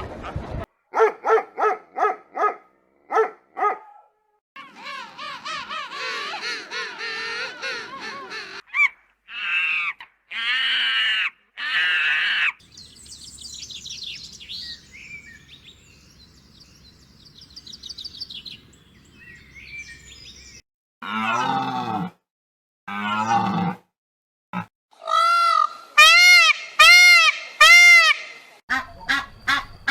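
A run of different farm animal calls, one after another with short gaps. It opens with a quick series of short calls, then longer rough and bright calls, two deep calls past the middle, and a string of short arching calls near the end.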